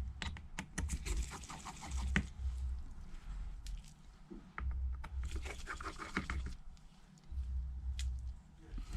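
Small clicks, taps and scrapes from a precision Phillips screwdriver and metal tools working at the screws inside an iPad mini 2, coming in short irregular clusters.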